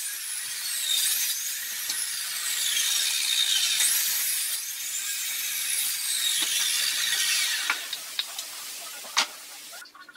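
Electric mitre saw running and cutting pallet wood, its motor whine rising and falling as the blade spins up and runs down through the cuts. A few sharp knocks come near the end before the noise stops.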